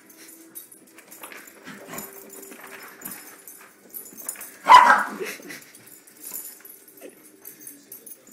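Dachshund puppies playing, one letting out a single short, loud bark about five seconds in, with fainter yips and scuffling around it.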